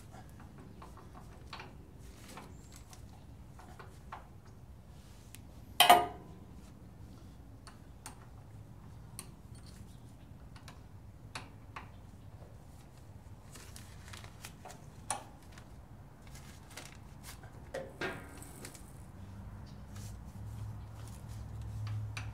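Scattered metal clinks and knocks of hand tools working on a sawmill's band blade assembly, with one sharp clank about six seconds in and another near the end. A low hum builds in the last few seconds.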